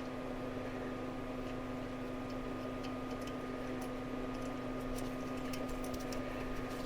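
Faint, scattered small metallic clicks from nuts being threaded by hand onto the fan clutch studs of a Corvette water pump, over a steady low hum.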